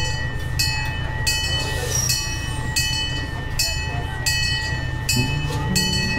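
Miniature C.P. Huntington replica park locomotive standing with its engine running at a low rumble while its bell rings in an even rhythm, about one strike every three-quarters of a second. Background music comes in near the end.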